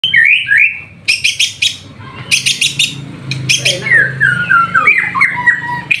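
White-rumped shama singing: clear whistled notes that rise and fall, broken by quick runs of sharp clicking notes.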